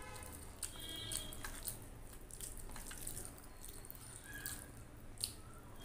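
Fingers mashing rice and kadhi curry together on a stainless-steel plate: soft wet squishes and irregular sticky clicks.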